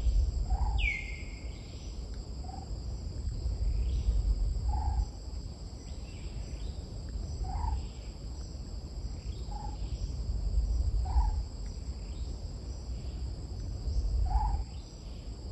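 Tropical forest ambience: insects drone steadily and high while a bird gives a short low call about every two seconds, with a sweeping whistle about a second in. A low rumble swells and fades underneath.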